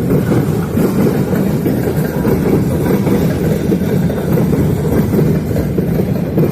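Freight train rolling past with a steady, heavy rumble.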